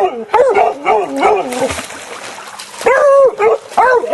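Hunting dogs barking and yelping in a quick run of short calls, then, after a pause, two longer barks near the end.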